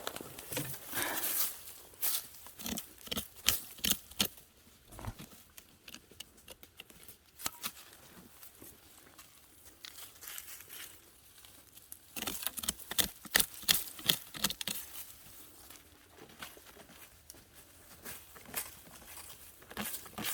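A dog digging into the forest floor: irregular scratching and crackling of dry leaf litter and soil, coming in bursts with quieter pauses between.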